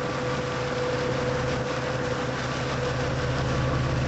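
An engine running steadily at a constant speed: a low hum with a faint steady whine over it.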